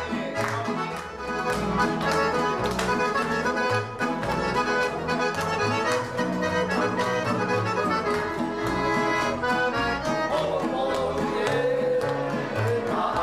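Accordion played live: a fast-moving dance melody over a steady, regular bass accompaniment.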